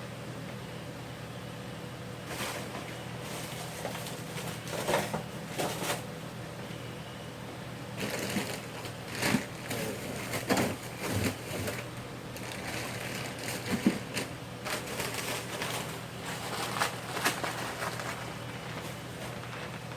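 Kitchen handling noises: irregular knocks, clatter and rustling, over a steady low hum.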